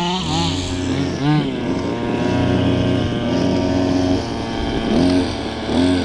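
Small RC car engines running, a steady idle with short revs that swing up and down in pitch several times.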